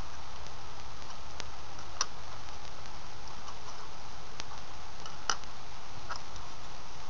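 An iPod's case being pried apart by hand with a plastic pry tool: about five sharp clicks, a second or two apart, the loudest about five seconds in, over a steady hiss and low hum.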